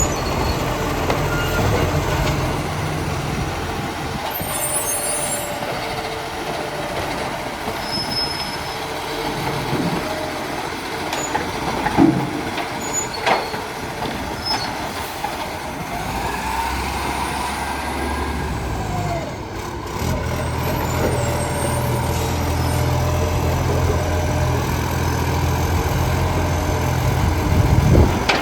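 Garbage truck's diesel engine running, growing louder about halfway through, with a few sharp knocks.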